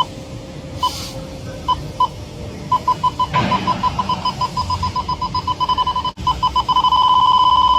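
Electronic refrigerant leak detector beeping: a few scattered beeps, then from about three seconds in the beeps quicken steadily until they run together into one continuous tone near the end, the detector's sign that it has found leaking refrigerant around two pipes.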